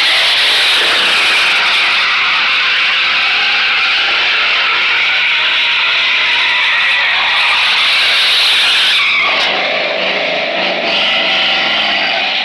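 Pickup truck doing donuts, its rear tires screeching in a continuous wheelspin over the engine held at high revs. About nine seconds in the screech falls away and a lower engine note carries on.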